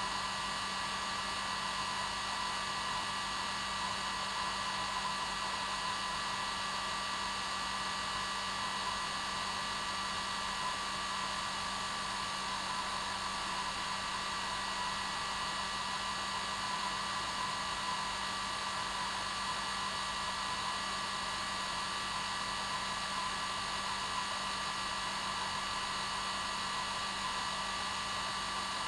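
Hair dryer running continuously at a steady speed: a constant whooshing hiss of air with a steady motor whine in it.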